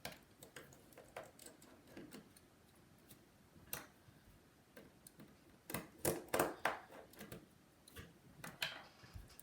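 Light clicks and taps of small repair tools and parts against an opened iPhone SE: scattered short ticks, with a cluster of louder clicks about six to seven seconds in.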